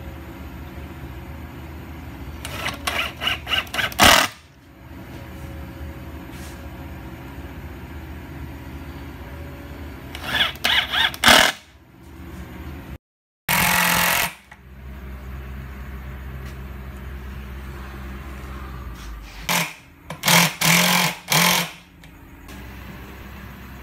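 Cordless drill driving screws in short trigger bursts, several quick pulses at a time, in four separate runs, over a steady low hum.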